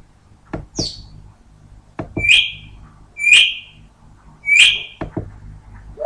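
African grey parrot calling: a short high call about a second in, then three loud, sharp whistled calls about a second apart, each dropping in pitch and then holding. Short clicks fall between the calls, over a faint low steady hum.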